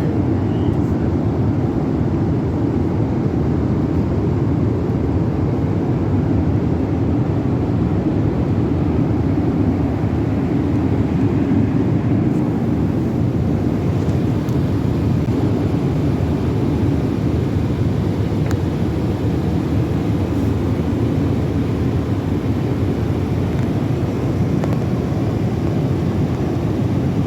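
Steady, unchanging roar of a Boeing 777-300ER jet airliner's engines and airflow.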